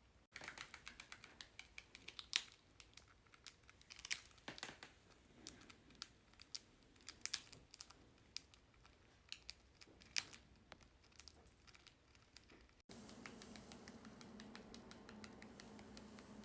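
A cockatiel's beak working at food or chewing something: a fast, irregular run of small clicks and crackles. It cuts off suddenly near the end and gives way to a low steady hum.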